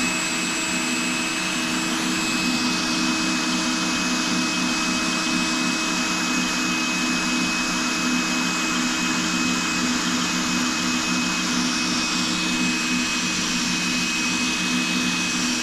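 Power drill running steadily with a hole saw grinding into porcelain tile, with water and pressure applied to make the cut. The drill starts right at the beginning and runs without a break.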